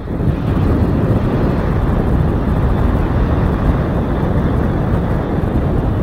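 Wind buffeting the microphone of a skydiver's camera under an open parachute canopy: a steady, loud, low rumble of rushing air.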